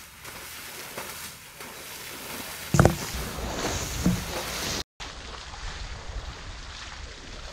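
Asian elephant sloshing and splashing through a wet mud wallow, with wind buffeting the microphone. A loud wet thump comes a little under three seconds in, and the sound drops out briefly near five seconds.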